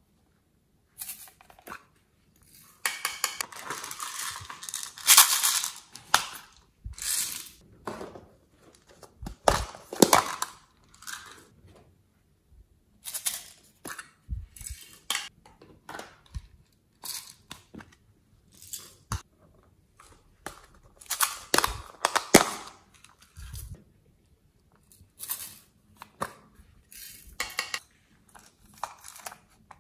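Close-up handling sounds of slime-making: irregular clicks, crackles and rustles as plastic toy containers are handled and beads and sprinkles are added to a tray of slime.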